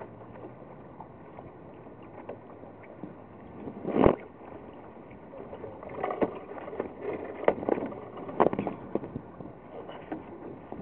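Water and wind hiss along a small sailboat's hull. About four seconds in there is one loud thump on the foredeck, then irregular knocks and thuds as a crew member moves and steps about on the deck beside the camera.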